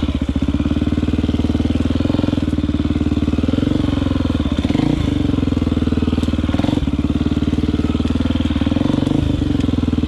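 Motorcycle engine running at low revs, with the engine note shifting briefly a few times as the throttle is worked.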